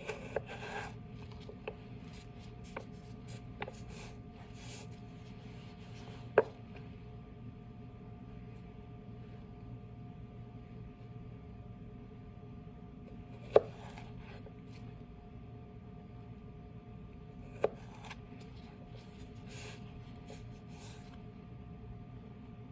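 Chef's knife slicing a carrot into batonnet sticks on a plastic cutting board: runs of quick, light cuts with pauses between, and three louder knocks of the blade on the board, about six, thirteen and seventeen seconds in.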